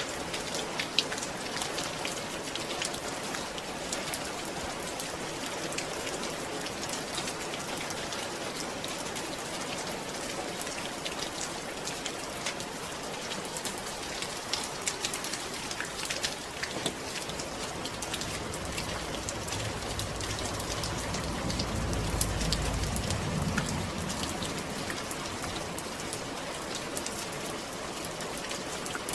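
Steady rain falling, with a dense patter of individual drops. A low rumble swells and fades about two-thirds of the way through.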